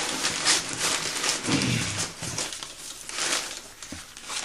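Crumpled newspaper packing rustling and crinkling in a cardboard box as a carburetor is pulled out of it. The rustle is busiest in the first couple of seconds and dies down toward the end.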